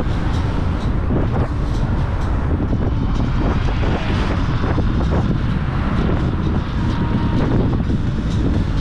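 Loud, steady wind buffeting on the microphone with a low rumble, from riding a Dualtron X2 Up electric scooter at speed.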